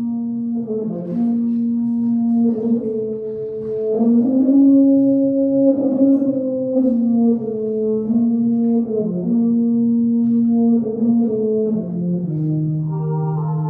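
Brass band playing slow, sustained chords, the harmony shifting every second or so and swelling after about four seconds. Near the end the bass steps down lower and more upper voices join in.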